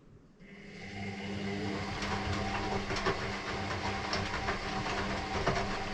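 Electrolux EW6S404WU washing machine running mid-cycle: a steady motor hum with hiss and many small clicks and rattles. It starts about half a second in and builds up over the first second.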